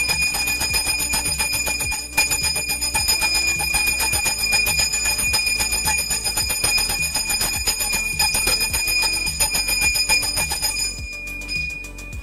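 Small brass hand bell (puja ghanti) rung fast and without a break in worship: a bright, steady ringing made of rapid clapper strikes. It stops near the end.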